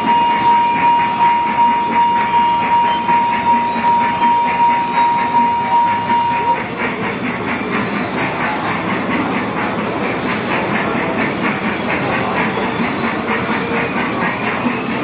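Small Thomas-themed amusement ride train running on its track with a steady rhythmic clatter. A single steady high tone sounds over the first half and then stops, after which the clacking comes faster and more even.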